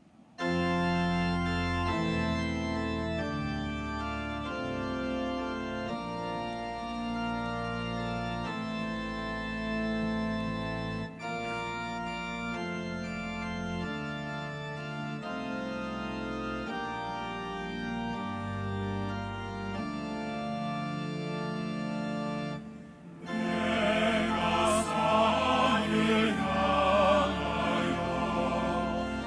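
Organ playing slow held chords over a moving bass line, with a brief break in the middle; about three-quarters of the way through, a choir starts singing with it.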